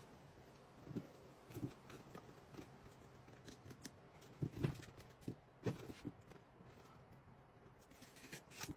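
Faint handling noises as blue painter's tape is pulled and pressed around a glued-up stave wooden mug blank: a few soft knocks of hands on the wood, with light crackling of the tape near the end.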